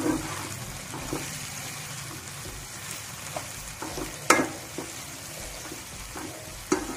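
Chopped vegetables sizzling in oil in a kadhai while a slotted spatula stirs them. A steady frying hiss is broken by a few sharp scrapes and knocks of the spatula on the pan, the loudest about four seconds in.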